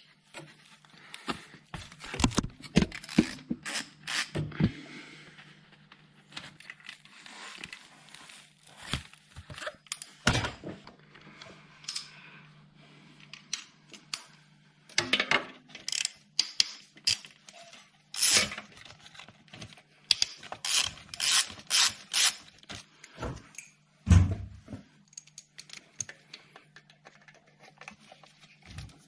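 A 1/4-inch hand ratchet clicking in short runs as the starter motor's mounting bolts are undone, with metallic clinks and taps of the socket and extension against the engine, and a dull knock near the end. A steady low hum runs underneath.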